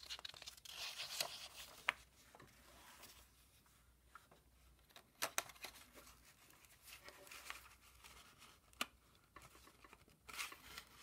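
Paper and card rustling and sliding against each other as they are handled, with a few sharp light clicks in between.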